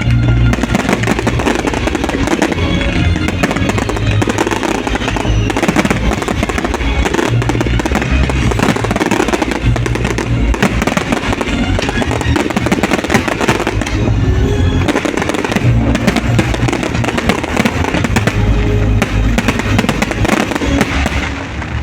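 Fireworks display going off: a dense run of bangs and crackles in quick succession, mixed with loud music.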